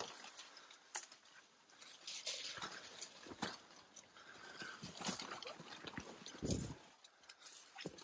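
Footsteps on a hiking trail: an uneven run of steps with light scuffs, and a brief low thump about six and a half seconds in.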